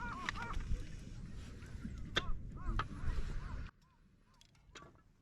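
Birds calling over and over in short arched calls, against a low rumble with a few sharp cracks. About three and a half seconds in the rumble cuts off abruptly, and fainter calls and clicks go on.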